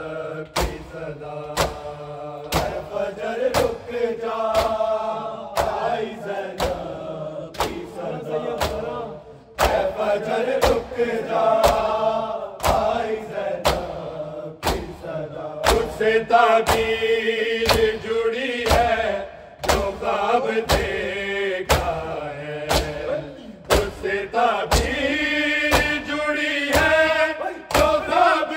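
Male voices chanting a noha in a chorus, over a steady rhythm of sharp hand-on-chest blows (matam) from a crowd of mourners, a little more than one blow a second.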